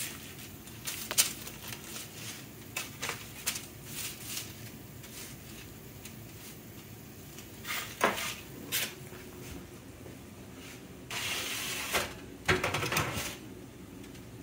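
Metal spatula tapping and scraping on a foil-lined sheet pan as fish fillets are flipped, a few sharp clicks in the first seconds and two more about halfway. Near the end a second-long scrape and a burst of clatter as the pan goes back onto the oven rack.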